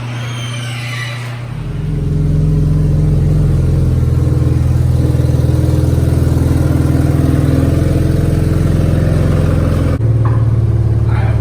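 Nissan 370Z's 3.7-litre V6 running through its exhaust: the engine note rises about two seconds in and is then held at a steady, higher pitch, dipping and shifting slightly near the end.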